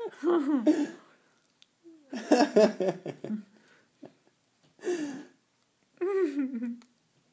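A woman making wordless, silly vocal noises with her mouth in four short bursts of bending pitch, the last one a falling glide.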